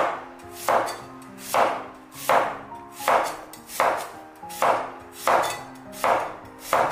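A Chinese cleaver chopping a peeled white radish into roll-cut chunks on a wooden cutting board. It makes about ten evenly paced cuts, one roughly every three-quarters of a second, each a crisp chop through the radish into the board.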